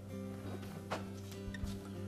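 Soft background music with sustained chords, and a single sharp click about a second in.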